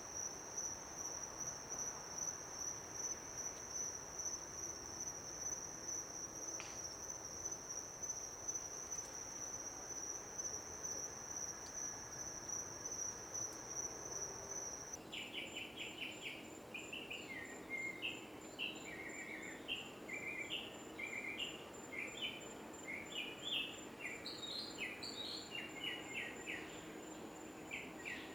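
Insects trilling steadily at one high pitch, in the manner of crickets. About halfway through, the sound changes abruptly to a slightly higher insect trill with a songbird singing quick, varied chirping phrases over it.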